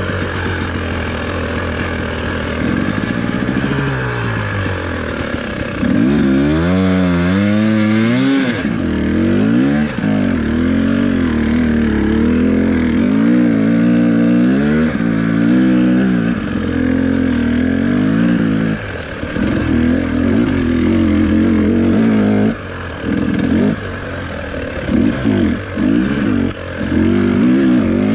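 Carbureted two-stroke engine of a 2018 KTM 300XC dirt bike, breathing through a stock pipe and FMF Turbine Core 2.1 silencer, revving up and down as the throttle is worked. The pitch rises and falls repeatedly and is hardest from about six to nine seconds in, with quick throttle blips near the end.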